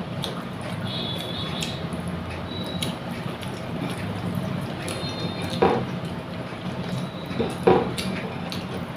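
Wet eating sounds: food being squished and mixed by hand and chewed, with two short louder smacks, about halfway through and near the end, over a steady low rumble.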